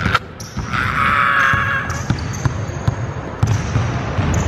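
Basketball being dribbled on a hardwood gym floor in repeated low bounces, with a high squeak lasting about a second that starts a little under a second in.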